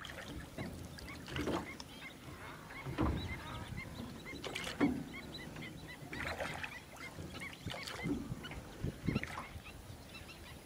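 A flock of waterbirds calling: many short, high calls overlapping throughout, with a low thump every second or two.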